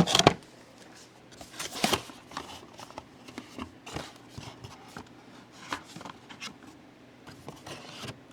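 Handling noise from a WERA Kraftform Micro screwdriver set and its packaging: scattered light clicks and rustles as it is opened and the drivers handled, loudest at the very start and again about two seconds in.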